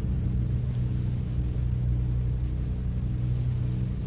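Steady low electrical hum with a faint hiss above it: the background noise of the lecture recording, heard in a pause between sentences.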